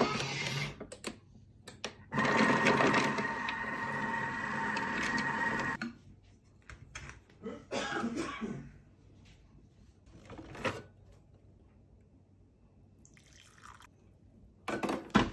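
Thermomix food processor running for about three and a half seconds with a steady whir and hum, stirring and heating milk and chocolate. About eight seconds in there is a clatter as its plastic lid is lifted off.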